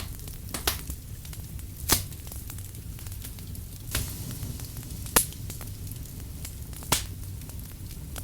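Firewood burning with a low steady rumble and irregular sharp crackles and pops, five or six of them standing out.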